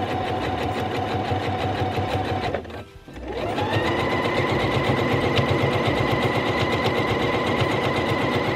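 Pfaff Quilt Ambition 2.0 computerised sewing machine stitching a zip into fabric with its zipper foot. It runs steadily, stops briefly about two and a half seconds in, then starts again with a rising whine and settles into a faster, higher-pitched run.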